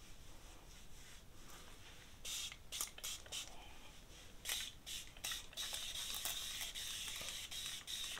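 Pump spray bottle misting hair treatment onto hair: a run of short hissing spritzes from about two seconds in, then a longer unbroken spray near the end.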